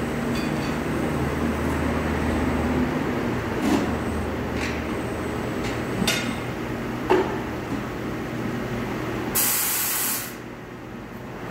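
Pneumatic tyre-changer machine at work: a steady low hum, a few metal knocks and clanks of tools against the wheel and tyre, then a sharp hiss of compressed air about nine seconds in that lasts about a second.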